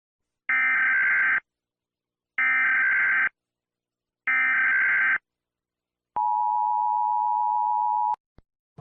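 Emergency Alert System alarm: three bursts of SAME digital header data, each just under a second and about a second apart, followed by the steady two-tone EAS attention signal (853 and 960 Hz), which runs for about two seconds and cuts off suddenly. A faint click comes near the end.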